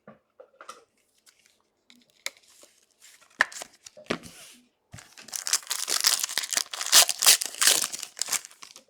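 A trading-card pack's wrapper being torn open and crinkled. Light scattered rustles and clicks come first, then from about five seconds in a dense stretch of tearing and crinkling that lasts nearly four seconds.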